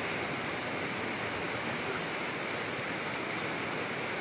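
Rain falling steadily, an even hiss that holds without break.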